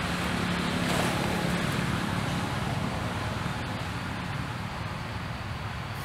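A motor running steadily, a low hum over a broad rushing noise, strongest in the first couple of seconds and then easing off slightly.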